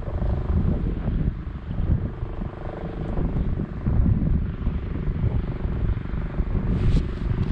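Federal Signal STL-10 outdoor warning siren sounding a steady tone in the distance, half buried under heavy wind buffeting on the microphone. A brief click comes near the end.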